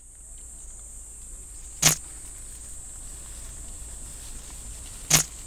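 A steady high-pitched insect drone, with two short whooshes about three seconds apart, the first about two seconds in.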